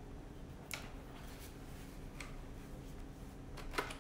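A few faint, short clicks as a Godox AD200 flash and its interchangeable head are handled, with the bare bulb head being taken off.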